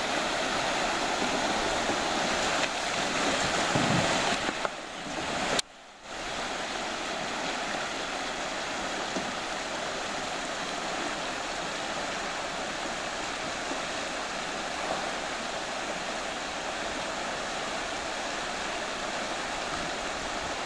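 Fast river water rushing steadily over a shallow riffle of rapids. It drops out for a moment about five and a half seconds in, then the rushing carries on a little quieter.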